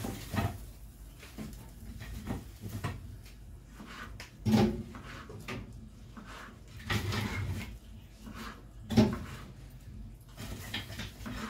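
Knife knocking on a plastic cutting board as tomatoes are diced, in irregular taps, with two louder sharp thumps about four and a half and nine seconds in.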